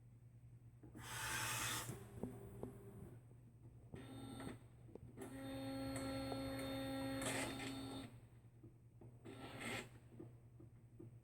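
Epson P600 inkjet printer, converted for direct-to-garment printing, running its power-up initialization: a short whir about a second in, then a steady motor whine for about three seconds in the middle, with brief mechanical whirs between, over a constant electrical hum.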